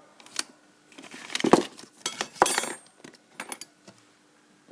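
Abus 72/40 padlock being gutted, its core worked out of the body: a string of light metal clicks and clinks, the loudest about one and a half and two and a half seconds in, some with a brief ring.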